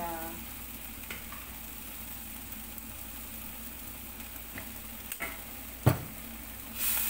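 Vegetables sizzling steadily in a wok, with a few light ticks. A single sharp knock comes about six seconds in, then the sizzling grows louder with the scrape of a metal spatula as stirring starts again near the end.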